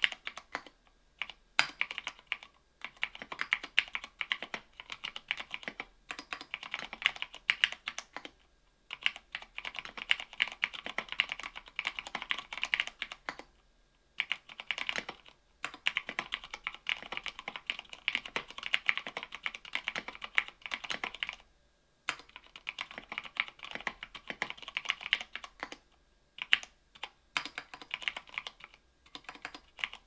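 Typing on a mechanical keyboard with lubed Cherry MX Brown tactile switches (45 g) in an aluminium plate, with OSA keycaps: fast runs of key clacks broken by short pauses every few seconds.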